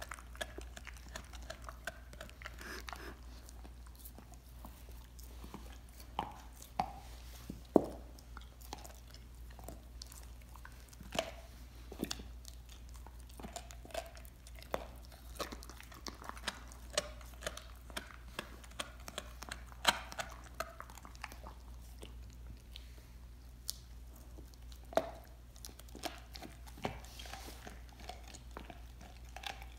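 A dog gnawing a raw lamb leg bone: irregular chewing with sharp cracks of teeth on bone. The loudest cracks come about eight and twenty seconds in.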